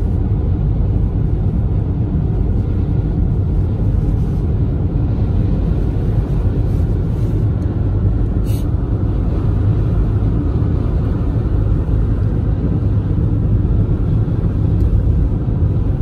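Steady low rumble of a car driving at road speed, heard from inside the cabin: tyre and engine noise.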